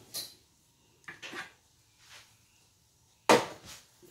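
A baking dish of ribs is slid into an oven with a few short scrapes and knocks. About three seconds in, the oven door shuts with a single loud bang.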